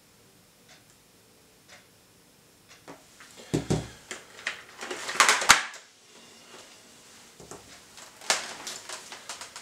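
A hand fumbling with a motorcycle headset unit clipped to the side of a helmet: rustling, scraping and knocks against the helmet shell, loudest about halfway through, with more rustling near the end. Before that, faint ticks about once a second.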